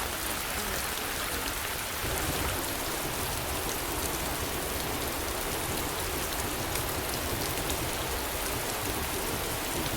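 Heavy rain falling steadily, a continuous hiss with scattered individual drops ticking.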